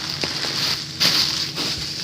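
Breathy hissing as helium is sucked from a foil balloon, with light crinkling and small clicks; one hiss comes about a second in and lasts about half a second.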